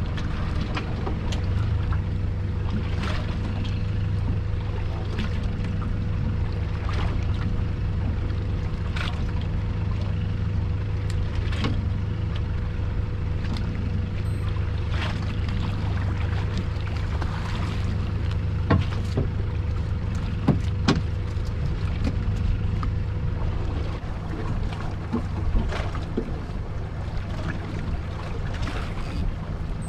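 Small fishing boat's engine running steadily, a low hum with a faint steady whine above it, with scattered sharp clicks and knocks now and then.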